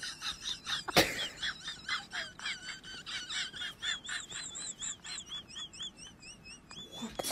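Dog whining while begging: a run of high, quivering whines and short squeaky chirps, with a sharp click about a second in.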